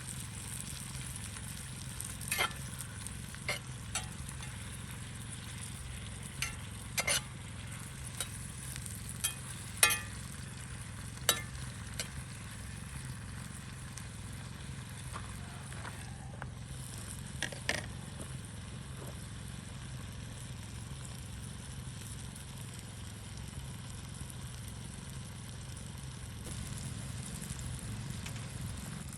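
Peppers and onions sizzling steadily as they sauté in a pan over a campfire, with about a dozen sharp clicks and pops scattered through the first two-thirds; the loudest come about ten and eleven seconds in.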